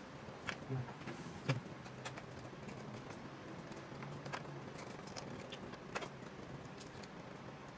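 Hands working the wiring and plastic parts of an opened projector: scattered sharp clicks and light rustling of wires and cable connectors against the plastic housing, over a steady low hum.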